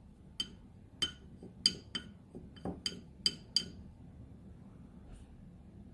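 A paintbrush tapping lightly against a porcelain dish, about eight quick ringing clinks in the first three and a half seconds, as excess water is knocked off the brush.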